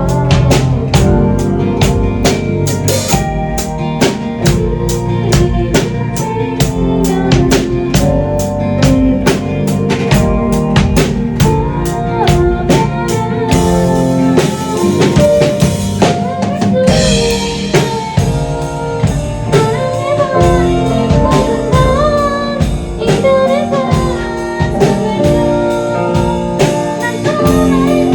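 Amateur band of keyboards and guitars playing a pop-rock song together over a steady drum beat.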